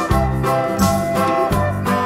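Upbeat background music with a steady beat and bass line.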